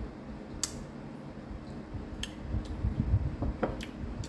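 Close-up mouth sounds of someone chewing lemon: a few scattered wet smacks and clicks over a low rumble.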